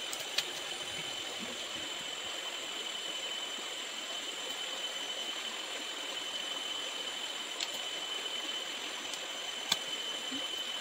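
Steady outdoor background hiss with a faint, steady high-pitched whine in it, broken by a few faint clicks.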